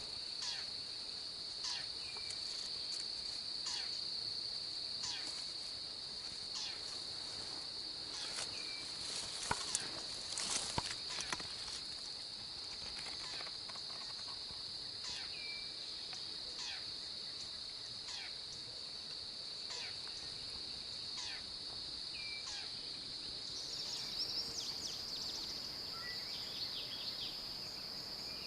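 Steady high-pitched drone of an insect chorus, with short descending chirps repeating about once a second and a few sharp rustling clicks about nine to eleven seconds in.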